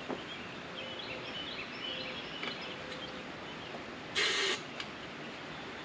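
One short hiss of aerosol starter fluid sprayed into a small Briggs & Stratton mower engine, about four seconds in and lasting under half a second.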